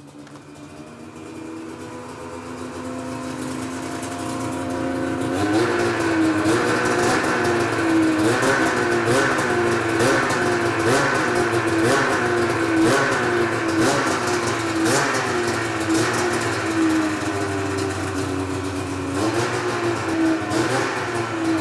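Snowmobile engine started on the stand: it idles and grows louder over the first few seconds, then is blipped on the throttle about once a second, each rev rising and falling in pitch. It runs steadier for a couple of seconds before a few more blips near the end.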